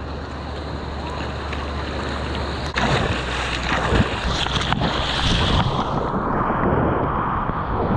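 Ocean water rushing and wind buffeting a helmet-mounted GoPro in the surf. The noise grows suddenly louder about three seconds in and sounds more muffled for the last couple of seconds.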